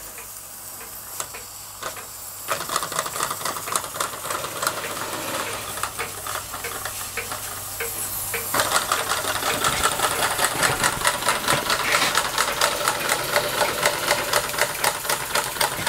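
Weeden 500 model vertical steam engine running under steam, a fast even ticking and chuffing with a hiss of steam. About eight or nine seconds in it gets louder and quicker as the engine picks up speed on the gas that has just been turned up.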